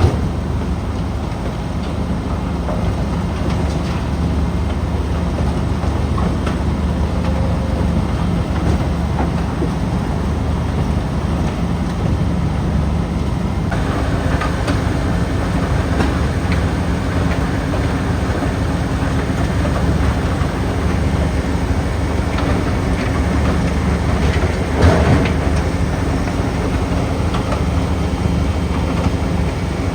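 Tracked mobile crusher grinding asphalt: a steady diesel engine drone under a continuous rattle and clatter of broken material. The clatter gets brighter about halfway through, and there is a sharp knock a few seconds before the end.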